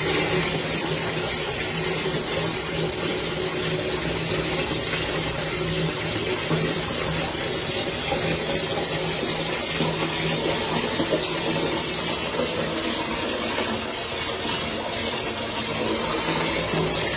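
Water spraying steadily from a shower head, a continuous even rushing hiss with a low steady hum underneath.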